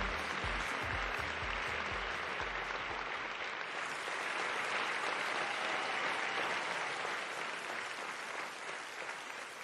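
Studio audience applauding steadily, over the low beat of a music sting that fades out in the first few seconds. The applause eases off near the end.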